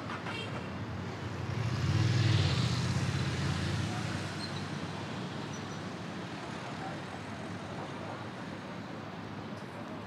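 A motor vehicle passes close by, its engine loudest about two seconds in and fading out by about four seconds, over steady city traffic noise.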